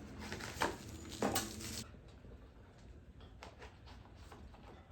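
Handling noises from working on a bicycle tyre and tube: rustling and scraping for about the first two seconds, then a few light clicks and taps.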